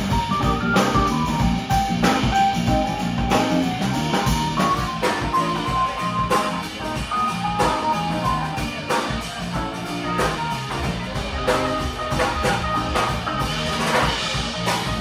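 A live band playing: electric guitar melody lines over a steady drum-kit beat, amplified through the stage PA.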